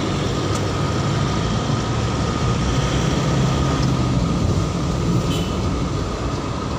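Steady drive noise of a moving road vehicle: a low engine hum under tyre and wind noise, with a faint steady whine above.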